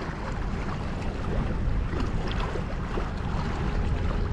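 Wind buffeting the microphone, a steady low rumble, over sea water washing and splashing with scattered small ticks.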